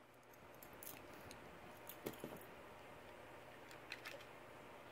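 Faint small clicks and snaps of plastic as a flat prying tool works the clip-on top shell off a DJI Spark drone, a few around two seconds in and a few more near four seconds.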